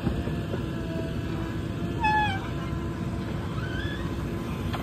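JCB 3DX backhoe loader's diesel engine running steadily under digging and loading work. About two seconds in, a brief high cry falls slightly in pitch and stands out as the loudest sound. A fainter rising cry follows near four seconds.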